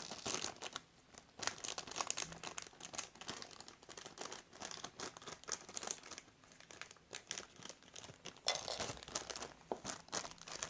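Plastic wrapping on a Lego City magazine being torn open and handled, with irregular crinkling and crackling throughout and a denser burst of rustling a little before the end.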